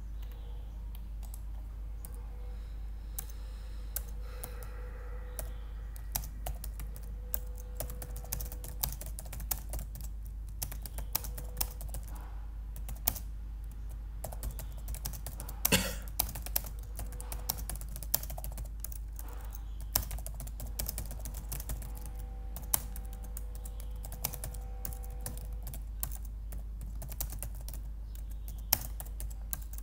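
Typing on a computer keyboard: irregular key clicks in short runs, with one louder clatter about halfway through, over a steady low hum.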